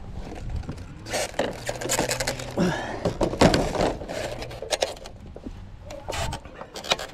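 White deck railing sections being handled and lifted: an irregular run of knocks, clatters and scrapes as the stacked panels shift against each other.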